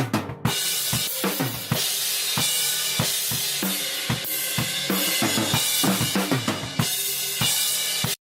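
Band music with a loud, busy drum kit (kick, snare and cymbals) over a steady bass line. It starts and stops abruptly.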